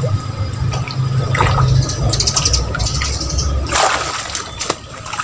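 A hooked fish thrashing and splashing at the surface of a pond as it is pulled in to the bank, with one loud splash near the end. A low rumble runs under the first part.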